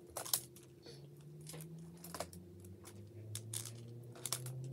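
Plastic magnetic building tiles clicking and clacking together as they are picked up, handled and snapped into place on a tile structure: a run of short, irregular clicks.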